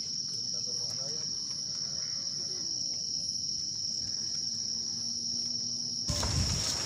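Crickets trilling in one steady, high-pitched, unbroken chorus. Near the end a broad rush of wind noise comes in over it.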